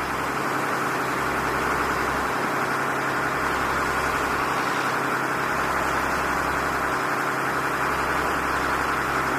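A boat's engine running steadily with a low hum, under a constant hiss of wind and water.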